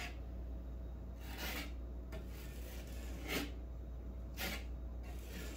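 Puppy nosing and biting into snow: three short scraping crunches spread over a few seconds, over a steady low rumble.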